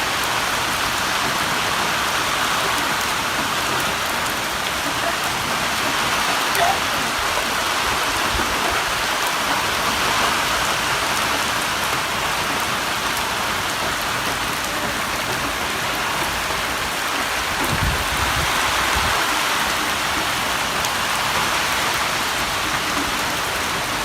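Heavy monsoon rain pouring steadily in a storm, with a brief low rumble about three-quarters of the way through.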